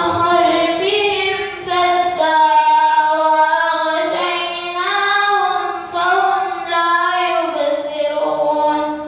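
A boy reciting the Quran in Arabic in a melodic tajweed chant. It is one long phrase drawn out on held, ornamented notes that rise and fall, fading just before the end.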